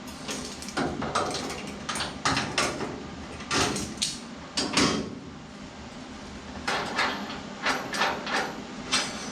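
Irregular knocks and clanks of metal parts and tools being handled on steel, with a short lull in the middle.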